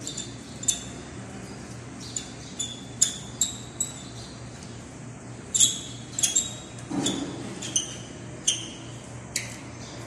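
Irregular light metallic clicks and clinks, about a dozen, each with a short high ring, from a small steel key tool working a screw in the steel faceplate of a Vingcard door lock, with a duller knock about seven seconds in.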